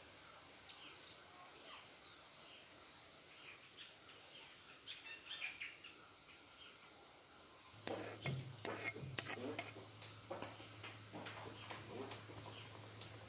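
Wooden spatula stirring dry-roasting seeds in an iron wok, faint, with birds chirping in the background. About eight seconds in, the sound switches to a run of sharp, irregular clicks and knocks over a low steady hum: wooden utensils and dry seeds clattering.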